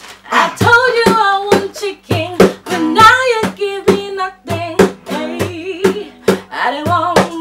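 A woman singing to a strummed acoustic guitar, with a man's voice joining in, strums coming about three a second.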